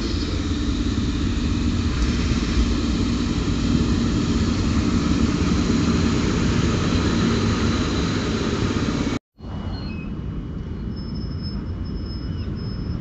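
Electric locomotive running past close by: a loud, steady rumble of wheels and running gear. It cuts off abruptly about nine seconds in, leaving quieter background noise with a few faint high tones.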